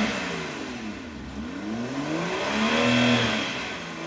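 2015 BMW X5 35i's turbocharged inline-six engine revved at standstill and heard at the exhaust. One rev is falling away at the start, and a second climbs to a peak about three seconds in and drops back.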